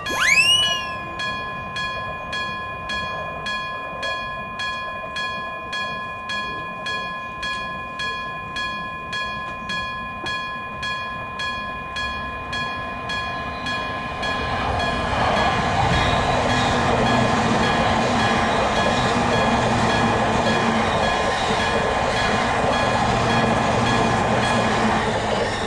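Japanese level crossing warning bell ringing about twice a second, with a short gliding tone right at the start. From about halfway through, a train runs through the crossing, its rushing noise the loudest part, until the sound cuts off just before the end.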